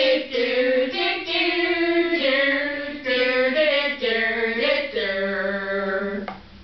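Young voices singing a melody in long held notes, breaking off shortly before the end.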